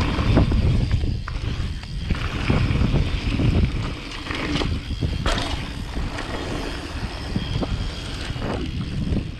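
Mountain bike descending a dirt downhill trail: tyres rumbling over dirt and rocks, with frequent knocks and rattles from the bike and wind buffeting the microphone.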